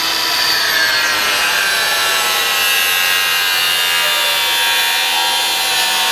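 Angle grinder with a cut-off disc running under load as it cuts through rubber radiator hose: a steady, loud whine whose pitch sags slightly as the disc bites.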